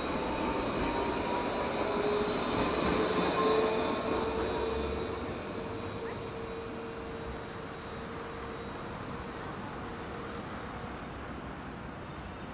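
Low-floor electric tram (Alstom Citadis) passing close by, its electric drive whining in several steady tones, one of them rising slightly in pitch, over a rolling rumble. It is loudest a few seconds in, then fades into quieter street noise.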